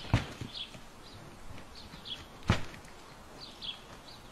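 Two sharp knocks of sheep butting heads, one right at the start and one about two and a half seconds in, with small birds chirping throughout.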